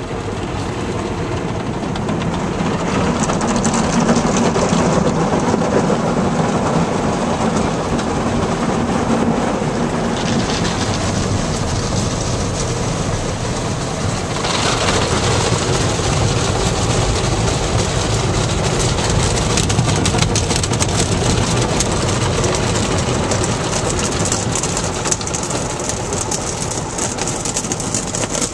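Ryko Softgloss XS 2.0 automatic car wash going through its Foambrite wash over a car, heard from inside the cabin: a steady loud rush of spraying water and wash machinery, turning hissier about halfway through.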